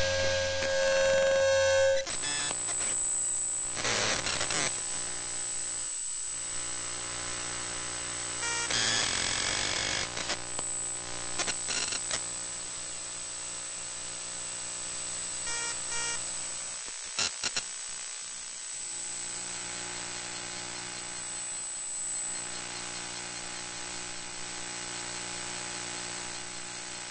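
Electromagnetic noise from electronic circuitry heard through a coil pickup: layered steady hums and a high whine, broken by short bursts of static about four, nine and seventeen seconds in and a few glitchy clicks.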